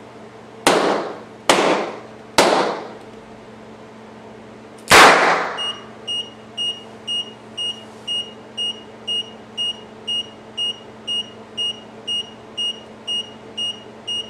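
Three balloons popping less than a second apart, then a single, louder shot from a small .22 calibre pistol. Right after the shot an electronic alarm starts beeping, a high tone about twice a second.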